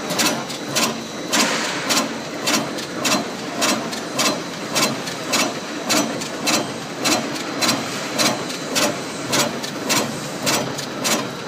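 Putty packing machine running, with a sharp clack repeating evenly about twice a second over a steady mechanical hum.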